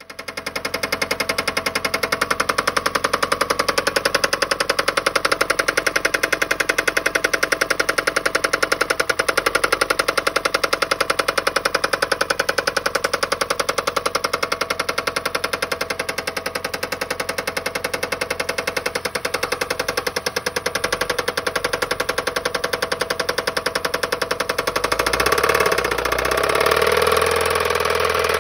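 Toyota Prius engine running with a loud, rapid metallic knock. The engine was run out of oil and its oil pan holds lots of metal. The knock gets louder and rougher about 25 seconds in.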